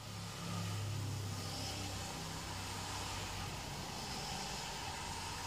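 Traffic on a rain-soaked road heard from inside a car: a low steady hum with the hiss of wet tyres and rain. It swells sharply at the start, then holds steady.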